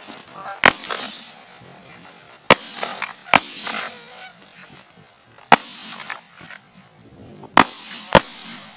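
A volley of six shotgun shots, unevenly spaced, the last two about half a second apart, each one sharp and followed by a short fading tail.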